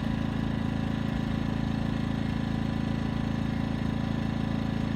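Small portable generator's engine running at a steady speed, an even, unchanging hum.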